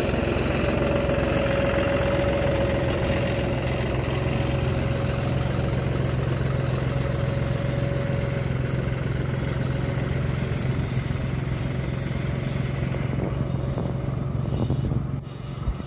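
Steady engine-like drone of heavy machinery running, with a low hum and a held tone that fades out about halfway through.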